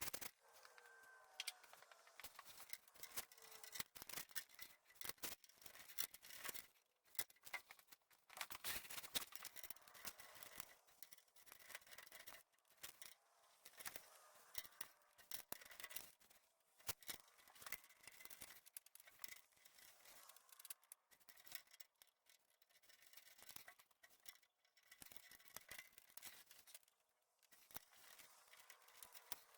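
Faint, irregular clicking and light scraping, with no steady tone or motor underneath.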